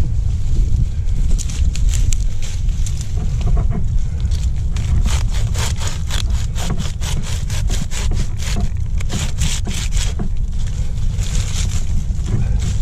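Ivy vines and leaves rustling, crackling and snapping as gloved hands pull and tear them away from a tree trunk, with a dense run of snaps in the middle.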